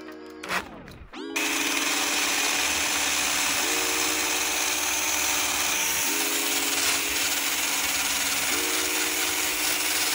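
Cordless drill spinning a steel wire wheel brush against rusty bolts held in a vise: a steady scratching hiss of wire on metal that starts about a second in. The brushing scrubs the rust off scooter battery terminal bolts so they make good contact.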